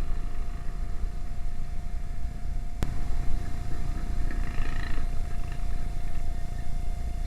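Wind rumble on the microphone while riding a Yamaha NMAX 155 scooter, with the scooter's engine underneath and a steady thin hum. A single sharp click comes about three seconds in.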